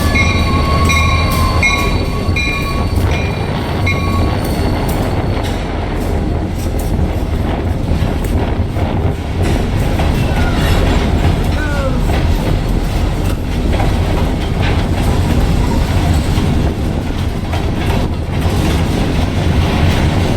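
A train rolling past with a steady low rumble and wheels clicking over the rail joints. A ringing tone repeats about twice a second during the first four seconds, then stops.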